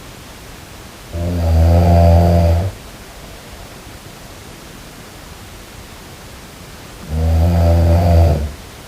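A sleeping person snoring: two loud, low snores about six seconds apart, each lasting about a second and a half, over a steady hiss.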